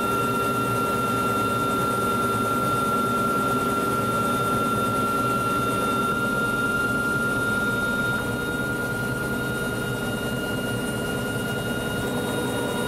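Helicopter in flight heard from inside the cockpit: a steady drone of rotor and engine noise with a thin, constant high whine over it, easing slightly about two-thirds of the way through.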